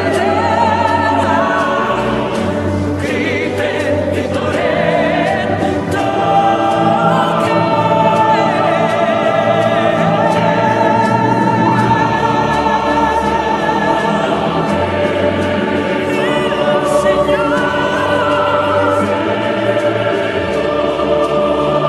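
Voices singing a slow sacred song in choir, with wavering held notes, over instrumental accompaniment with long held bass notes.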